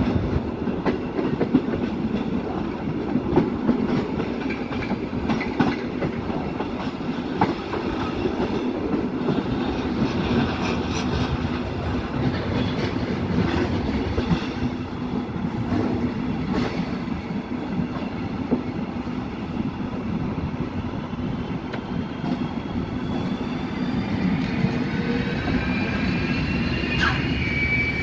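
Wheels of a slow-moving passenger train rumbling on a curve, clicking over rail joints and points, heard close from a carriage window. In the last few seconds a thin, high wheel squeal sets in and rises slightly in pitch.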